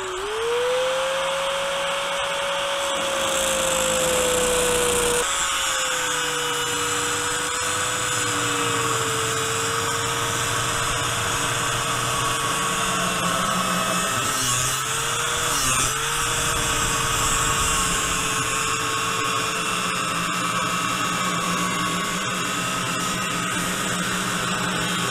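Handheld angle grinder with a cutoff wheel cutting through a steel bolt. It winds up to speed in the first second, then runs as a steady whine under the grinding hiss of the wheel on the metal. The pitch dips briefly about two-thirds of the way in as the wheel bites harder.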